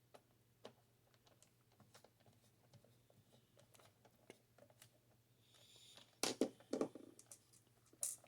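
Screws being driven with a screwdriver into the plastic case of a Tandy WP-2: faint scattered clicks and ticks, then a brief scrape and a few louder knocks about six seconds in, and one more sharp click near the end.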